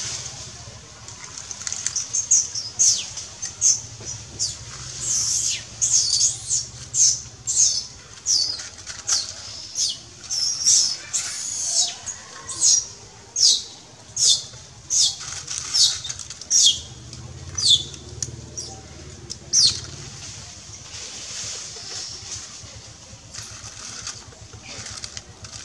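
Baby long-tailed macaque crying: more than twenty short, high-pitched squeals, each falling in pitch, about one a second, stopping shortly before the end.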